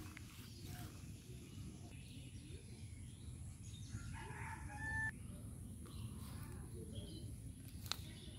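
A bird gives one pitched call lasting about a second, about four seconds in, over a steady low background rumble, with a single sharp click near the end.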